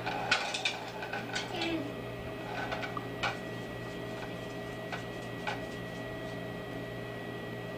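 Light clicks and taps of small kitchen items handled at a counter, mostly in the first few seconds with a couple more later, over a steady hum.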